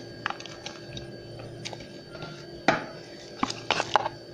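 Light taps and soft knocks as pieces of green and red pepper are dropped onto a pile of chopped parsley and garlic. The loudest tap comes about two-thirds of the way in, with a quick cluster near the end, over a faint steady hum.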